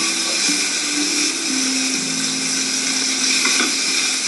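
Chopped onions sizzling in hot olive oil in a kadhai, a steady loud hiss, played back through a television's speaker.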